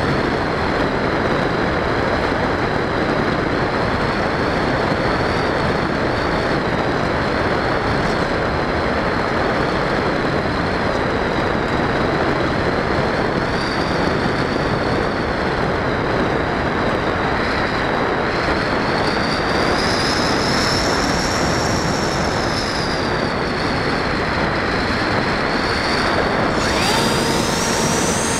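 Electric motor and pusher propeller of an Easystar 2 RC foam plane running with a thin high whine under loud, steady rushing airflow on the onboard camera's microphone. The whine climbs in pitch about twenty seconds in, sinks back, and climbs again near the end, when a faint lower hum joins it.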